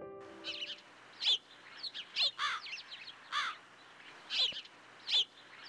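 Birds calling and chirping in a daytime ambience track: a string of short, high, swooping calls, one every second or less.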